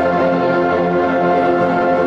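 Orchestral music: an orchestra playing long, held chords with slowly changing notes.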